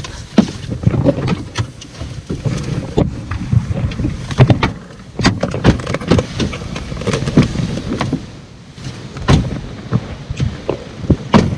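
Close, irregular knocks, bumps and rustling as people shift gear bags and climb out of a car, with the camera being jostled.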